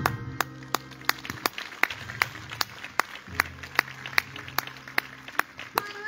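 Audience clapping in unison in a steady beat, about two and a half claps a second, over background music with held low notes.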